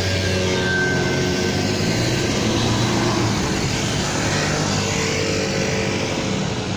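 A motor scooter and an ambulance van drive past, their engines running, with steady traffic noise.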